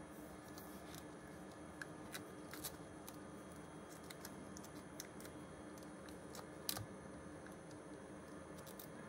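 Faint, scattered small clicks and taps as gloved hands handle a laptop LCD display cable connector and a plastic spudger, with the sharpest tap about two-thirds of the way through, over a low steady hum.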